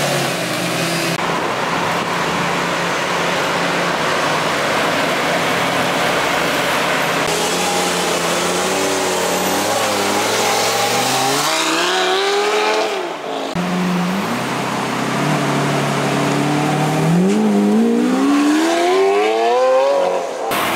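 Lamborghini Gallardo's V10 engine running, then revving hard as the car pulls away. Its note climbs steeply in pitch about 11 seconds in, drops briefly, and climbs steeply again from about 17 seconds.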